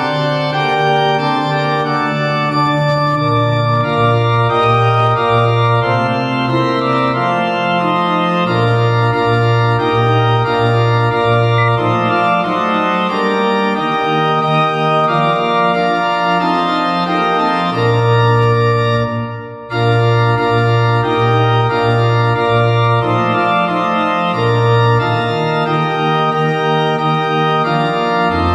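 Organ sound playing a four-part hymn in sustained block chords with a moving bass line, the score's playback from notation software. A brief break between phrases comes about two-thirds of the way through.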